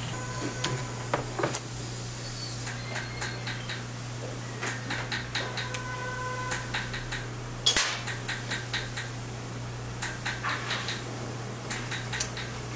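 Irregular clusters of small metallic clicks and taps with a faint ring, from jeweler's setting tools working stones into a pavé-set Cuban chain. The sharpest tap comes about eight seconds in, over a steady low hum.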